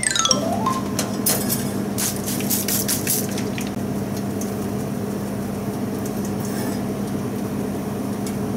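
A commercial fish grill running with a steady hum and hiss, with a few light metallic clicks about a second or two in as fish fillets are laid on its wire rack.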